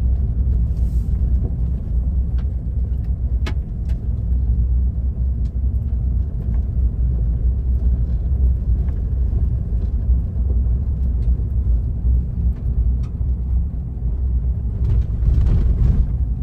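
Car driving on a gravel road, heard from inside the cabin: a steady low rumble of tyres and road noise, with scattered sharp clicks.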